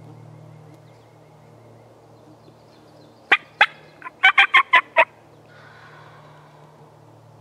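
A run of about eight short, sharp, loud turkey calls over a second and a half, with a brief gap after the first two.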